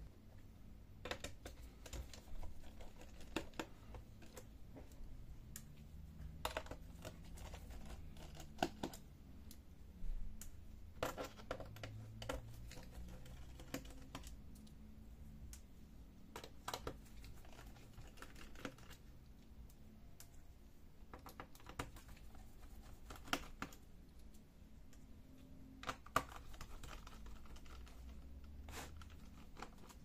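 Irregular small clicks and taps of a precision screwdriver working the screws out of a Lenovo IdeaPad 110-15IBR laptop's plastic bottom panel.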